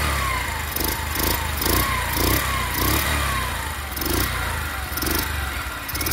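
Yamaha YBR 125's single-cylinder four-stroke engine idling steadily, running on a swapped-in STX 125 carburetor. Over it, a falling chirp repeats about twice a second.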